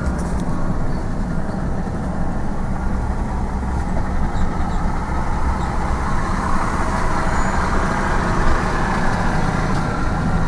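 A truck's engine running steadily with a low rumble, rising a little in level partway through.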